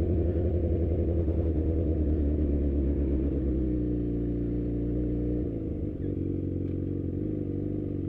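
Sport motorcycle engine running at steady revs as the bike rides along; about five and a half seconds in, its pitch drops suddenly and it runs on lower.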